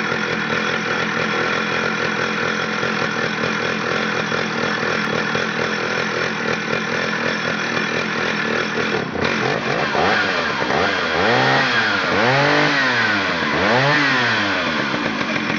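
Stihl 051 two-stroke chainsaw running at a steady speed, then revved up and let back down three times.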